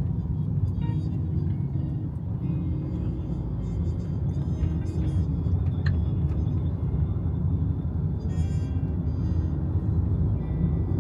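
A steady low rumble with light music over it.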